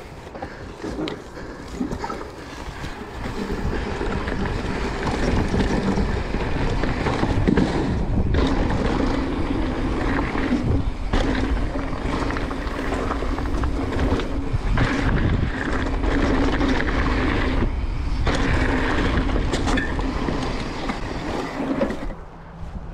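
Wind rushing over the microphone and a mountain bike's tyres running over a dirt trail at speed, with scattered knocks and rattles from the bike over bumps. The noise grows louder about three seconds in and drops off near the end.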